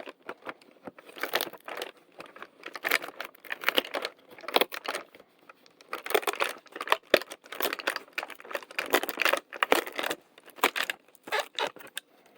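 Hands opening a fidget toy advent calendar compartment and unwrapping the toy: plastic packaging crinkling, with irregular clicks and rattles as the small plastic toy is handled.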